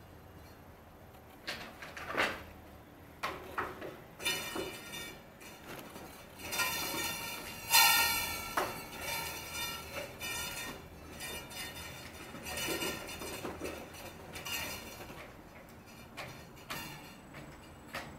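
Plastic clamps being handled and snapped onto plywood edges: scattered clicks, clacks and short rattles, with a quick ratchet clamp being fitted and squeezed among them. The loudest clatter comes about eight seconds in.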